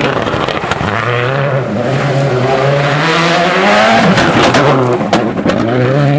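A turbocharged World Rally Car driven hard on gravel, its engine revving high, the pitch climbing and dropping several times through gear changes as it passes close. A burst of sharp cracks comes as it goes by, about two-thirds of the way in.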